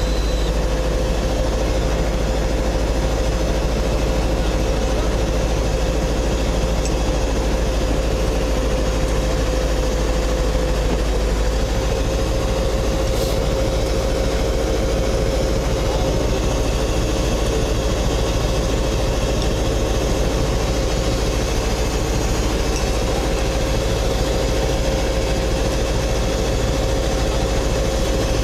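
Scania 143M truck's V8 diesel engine idling steadily, with a constant low hum and a steady tone over it.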